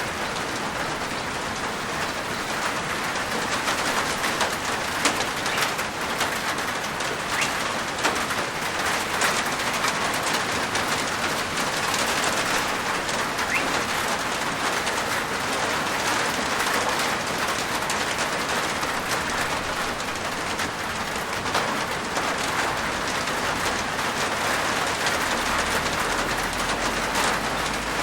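Rain falling steadily on a rooftop: a dense, even patter with many single louder drop hits scattered through it.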